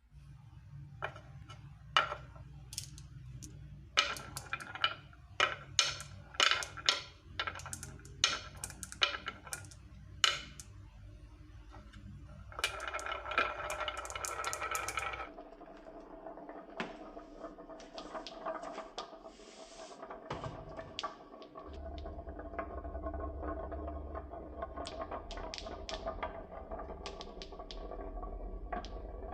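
Marbles clacking and rolling along a toy marble-run track. Scattered sharp clicks come first, then a dense rattle about halfway through, and after that a steady rolling sound with occasional clicks.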